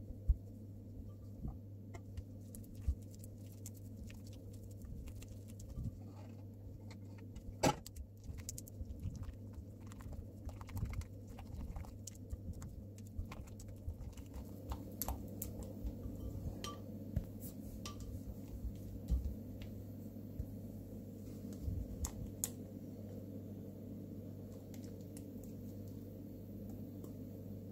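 Scattered light clicks and taps of kitchen utensils and containers being handled, over a steady low hum.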